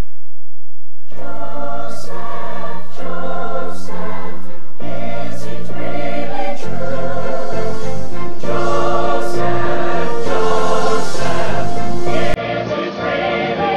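Choral music: a choir singing sustained chords over a steady bass, starting about a second in. It cuts off abruptly near the end, where quieter music takes over.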